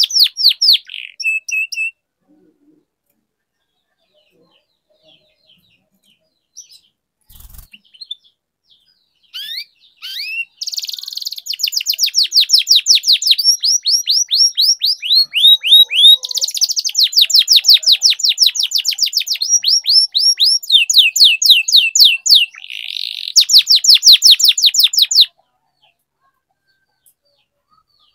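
Yellow domestic canary singing in rapid trills of falling notes, switching from one trill phrase to the next. A short burst at the start is followed by a pause of several seconds, then about fifteen seconds of unbroken song that cuts off suddenly.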